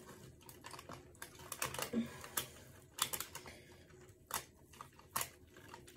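Irregular sharp clicks and snips of a cooked chicken being cut up, with utensils clicking against the tray and meat being pulled apart.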